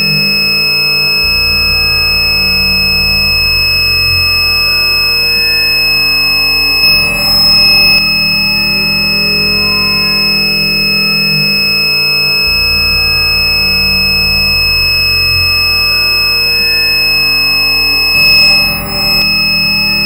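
A continuous high-pitched electronic beep tone, held without a break, over a lower, shifting hum. A short burst of hiss cuts in about seven seconds in and again near the end.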